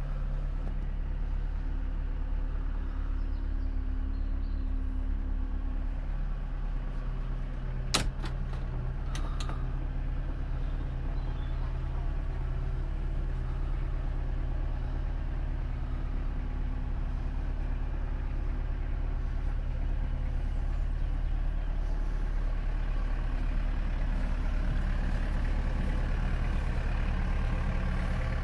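Elddis 320 motorhome's engine idling steadily, heard from inside the vehicle's living area and cab. A single sharp knock sounds about eight seconds in.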